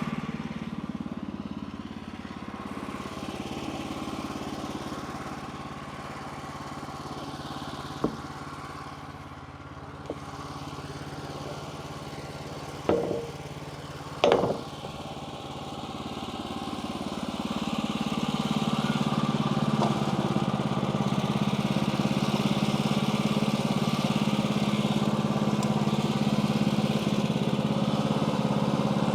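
A portable sawmill's small gas engine runs steadily. It runs quieter through the first half, with a few sharp clanks around the middle, then grows louder and stays up for the rest.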